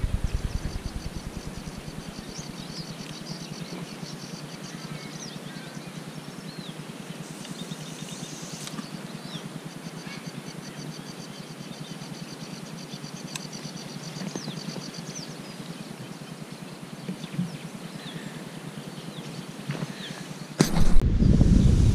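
Small birds chirping over a steady outdoor hiss. About 21 seconds in, a sudden loud buffeting of wind on the microphone sets in.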